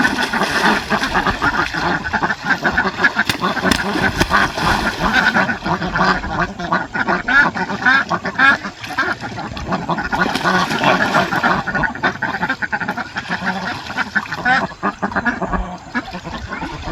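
A flock of domestic ducks quacking over and over, many calls overlapping without a break.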